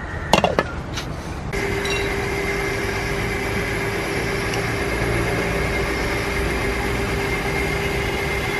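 A couple of knocks, then an electric mixer grinder starts about a second and a half in and runs steadily with a constant hum and whine. It is wet-grinding coconut, shallots, garlic and chilli powder with a little water into a fine curry paste.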